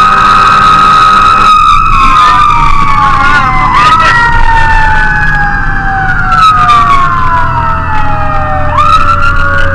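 Fire engine sirens sounding: one siren tone holds steady at top pitch, then about a second and a half in begins a long, slow fall in pitch that continues to the end. A second siren sweeps up and down in slow wails over it, with the truck's engine rumbling low beneath.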